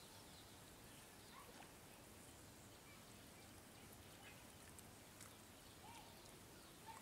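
Near silence: faint outdoor ambience with a few faint chirps.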